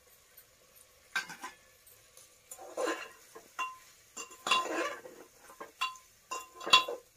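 Metal spoon stirring rice and dal in an aluminium pressure cooker, clinking and scraping against the pot's sides at irregular moments, some strikes ringing briefly.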